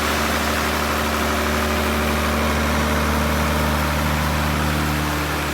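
Sawmill machinery running steadily: a constant engine hum made of several unchanging tones, with no change in load.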